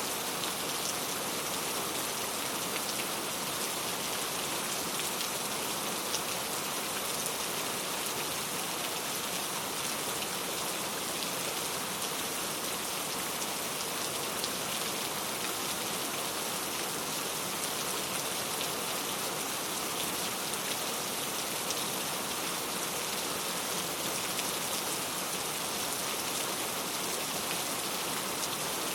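Steady rain falling, a dense, even patter of raindrops that keeps on without a break.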